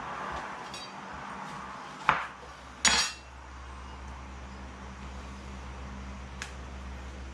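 Two sharp clinks of kitchenware knocking together or on a hard surface, a little under a second apart, the second ringing briefly; a faint tick follows near the end.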